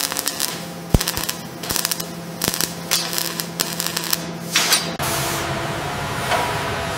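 Welding sparks crackling and hissing from a robotic torch: a dense run of sharp crackles and pops, an AI-generated sound effect. About five seconds in it cuts to a steady factory machine hum.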